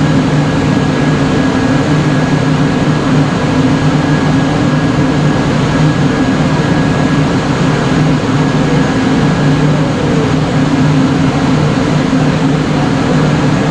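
A steady, loud mechanical drone with a low hum and a faint high whine, unchanging throughout.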